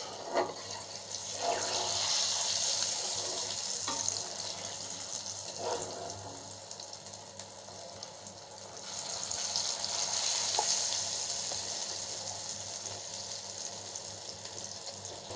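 Mustard oil with spices and mustard paste sizzling in a karai while it is stirred with a spatula. The hiss swells twice, with a few faint knocks of the spatula against the pan.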